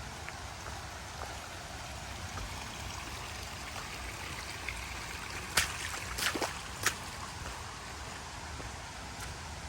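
Steady rush of a flood-swollen stream. A few sharp clicks a little past halfway are the loudest sounds.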